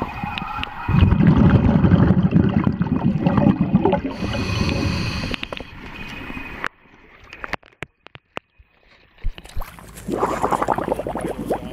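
Underwater bubbling from a scuba diver's exhaled breath under lake ice: a loud, low gurgling rumble for several seconds that stops abruptly, leaving a few faint clicks. Near the end, water sloshes and splashes as the camera breaks the surface in the ice hole.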